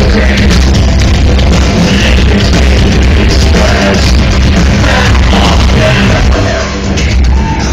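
Electro-industrial band playing live: loud, bass-heavy music with a steady pounding low end, recorded on a phone in a concert hall.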